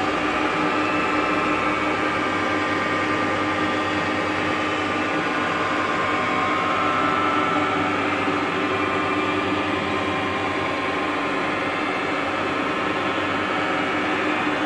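Sajo milling machine running: a steady mechanical hum with several held tones over a noisy background.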